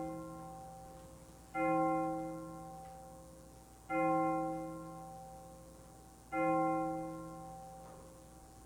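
A piano note struck the same way three times, roughly every two and a half seconds, each ringing out and dying away, with the tail of an earlier strike fading at the start.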